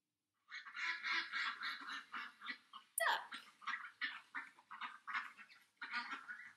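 Ducks quacking in a rapid run of short calls, with a sharper call about three seconds in that slides down in pitch.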